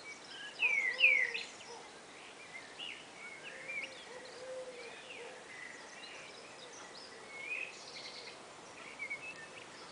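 Two blackbirds calling back and forth in short downward-sliding chirps. The loudest is a quick pair about a second in, followed by scattered quieter calls and faint lower notes.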